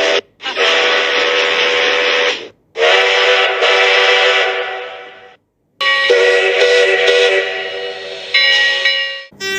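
Steam locomotive chime whistles. One multi-toned whistle sounds in three blasts, the last fading away. After a short gap a different whistle blows for about three and a half seconds, its tones changing near the end.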